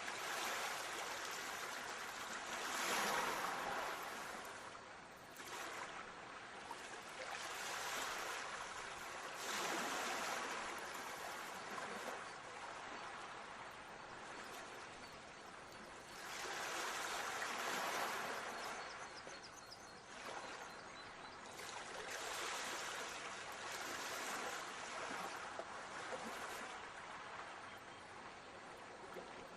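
Sea waves washing onto a shore, the wash swelling and fading every few seconds.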